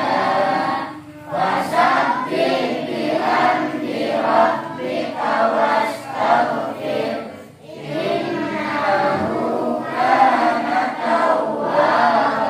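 A group of children chanting a recitation together in unison, in sung phrases with short breaks about a second in and near eight seconds in.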